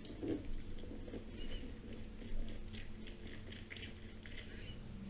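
A lemon half twisted and pressed by hand on a citrus reamer, the pulp and juice squelching and crackling faintly and irregularly.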